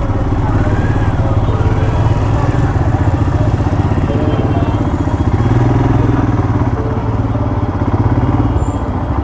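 Motorcycle engine running steadily at low revs, held back while the bike edges through a traffic jam.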